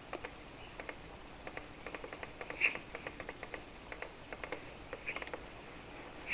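Computer mouse button clicking lightly and irregularly, a few clicks a second, each click a quick press-and-release pair. A brief soft higher-pitched sound stands out about two and a half seconds in.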